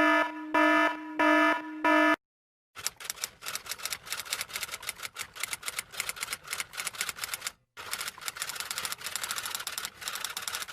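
Four short buzzer beeps on one steady pitch, then a long run of fast typing clatter, many keystrokes a second, in two stretches with a brief pause between them.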